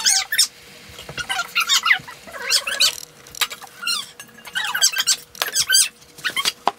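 A child's high-pitched squeaky vocalising: a run of short squeals and chirps that rise and fall in pitch.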